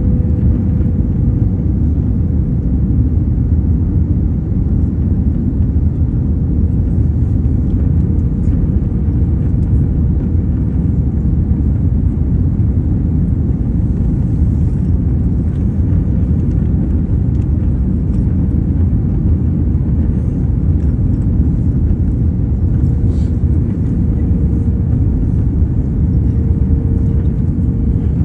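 Cabin noise of an Airbus A320-family jet on final approach with flaps extended: a steady, loud low rumble of airflow and engines, with a faint steady hum that grows a little stronger near the end.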